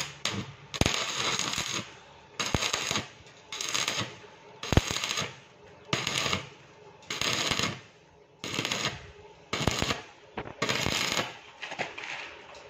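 Stick (arc) welding on a steel tube frame: the arc crackles and sizzles in about ten short bursts, each under a second, as the arc is struck and broken again and again.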